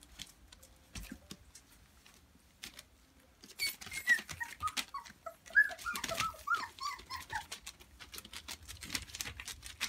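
Young puppies whimpering and yelping in a run of short, high cries that fall in pitch, starting a few seconds in, during rough play. Paws scrabble and click on plastic sheeting throughout.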